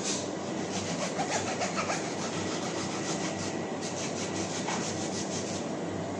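Knife peeling a mango: a run of quick, short scraping strokes as the blade slices through the skin, stopping shortly before the end. A steady machine hum runs underneath.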